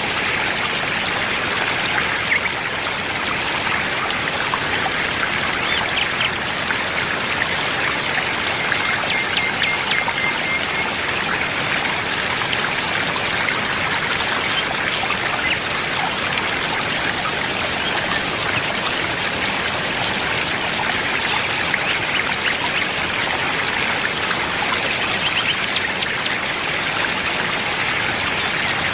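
Running water, like a stream flowing over stones: a steady rush with trickling.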